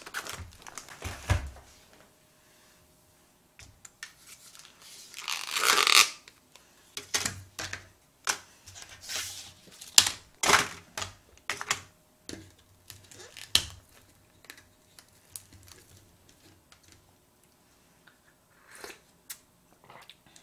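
A packet torn open in one long rip a little over a quarter of the way in, then crinkling packaging and a run of short sharp clicks and taps as the packet and a small cup are handled on the table.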